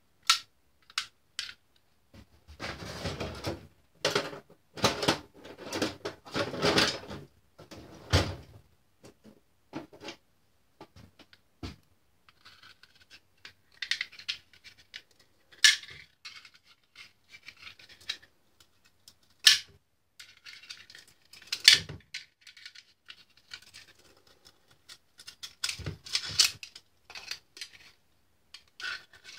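Metal clinking, rattling and scraping as a phonograph motor's mainspring barrel is handled and worked at with a hand tool to get the spring out. The sound is irregular, with a busy stretch of scraping a few seconds in and scattered sharp clicks after.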